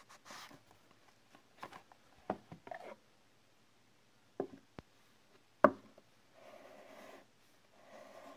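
Cardboard watch box being handled: scraping and rubbing as it slides out of its outer sleeve, several light knocks on the table, and one sharp knock about five and a half seconds in as it is set down. Near the end come soft repeated breaths close by.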